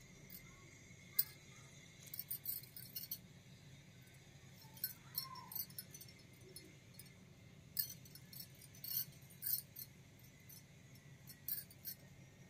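Light clicks and clinks of miniature toy kitchen pieces, plastic utensils and small stainless-steel pots, being handled and set down, in small scattered clusters.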